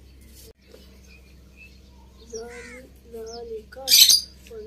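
Crows cawing a few times in the second half, then a loud harsh burst just before the end, over a steady low hum.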